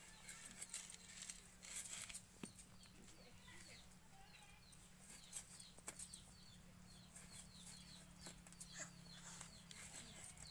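Faint background of many short, high bird chirps, with a few soft knocks and a low steady hum underneath.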